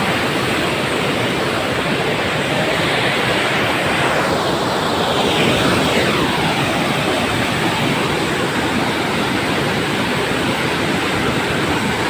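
Steady, loud rushing noise with no breaks or distinct events, of the kind made by fast-flowing water or strong wind.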